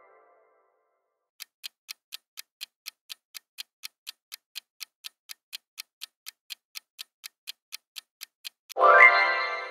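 Countdown timer sound effect ticking steadily, about four ticks a second, then a loud ringing sound effect near the end that fades over a second or two.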